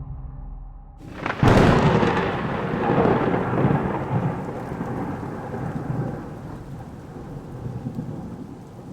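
Thunderclap in rain: a sudden sharp crack about a second and a half in, then a long rumble that slowly dies away while rain keeps falling.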